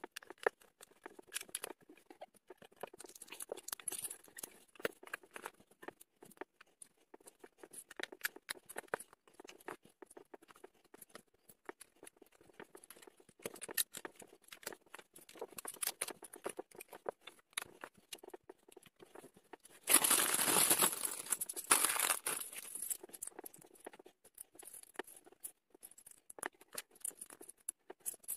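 LEGO bricks clicking and rattling as pieces are picked from a pile and pressed together, with a clear plastic parts bag crinkling loudly for about two seconds past the middle.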